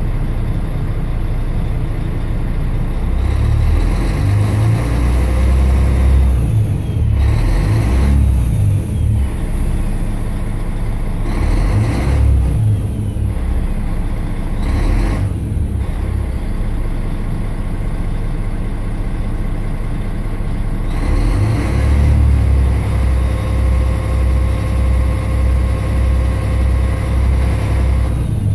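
Volvo B12M bus's 12.1-litre D12 six-cylinder diesel being revved in neutral while standing, engine speed rising and falling repeatedly. A few brief hisses cut in along the way.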